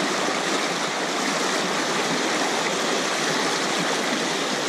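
Fast-flowing floodwater rushing steadily past, a constant even roar of current with no breaks.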